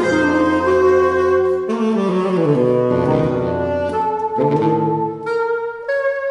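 Saxophone trio of alto, tenor and baritone saxophones playing sustained, overlapping notes in close harmony. The lowest part steps downward partway through, then drops out near the end, leaving the higher saxophones holding notes.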